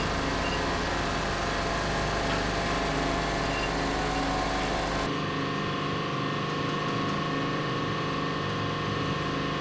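Workshop hydraulic press running with a steady mechanical hum while it straightens a piece of damaged armour plate; the hum's tone changes about five seconds in.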